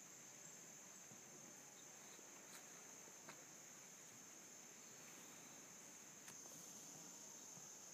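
Faint, steady high-pitched insect chorus, with a few faint clicks.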